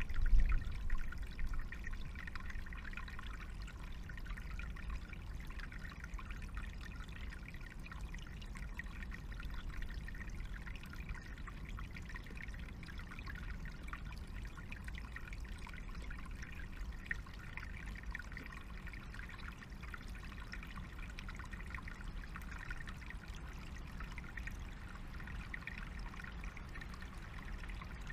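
Small forest stream trickling steadily over stones, with a few low thumps in the first second.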